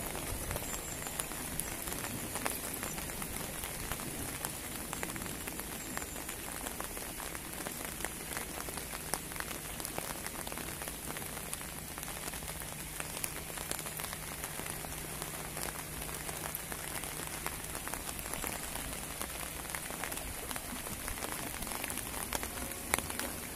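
Steady rain pattering, with many small drop ticks.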